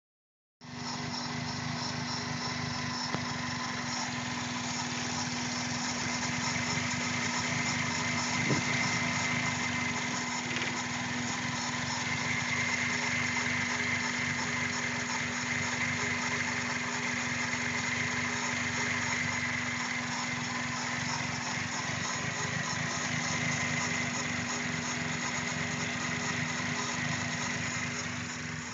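2001 Toyota Corolla's four-cylinder engine running steadily, most likely at idle; the car is throwing a P0300 random/multiple-cylinder misfire code.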